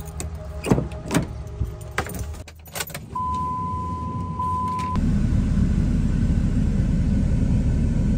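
Keys jangling and clicks inside a Dodge Ram 2500 pickup, then a steady electronic chime for about two seconds. About five seconds in, a louder steady low rumble of the truck running takes over.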